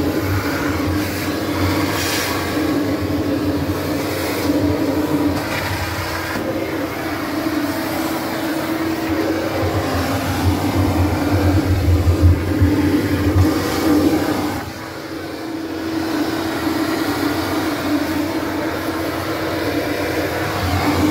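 Ridgid 12-gallon wet/dry shop vacuum running steadily, its hose nozzle sucking ash and gunk off the ceramic bricks of a wood-fired pizza oven. The motor's hum dips briefly about fifteen seconds in.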